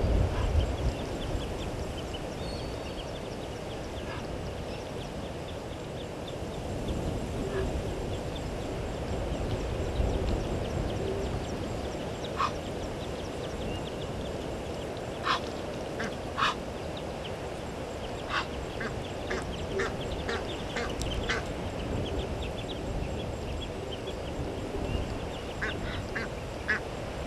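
Short, sharp animal calls, first a few single ones, then a quick run of about seven in three seconds, then a few more near the end, over a steady low background noise.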